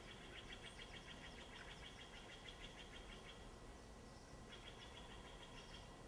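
A small songbird singing a rapid, even trill twice: a long trill of about three and a half seconds, then a shorter one of about a second and a half.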